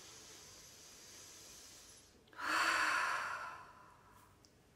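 A woman's deep breath: a long quiet in-breath, then a loud breathy out-breath about two and a half seconds in, lasting about a second.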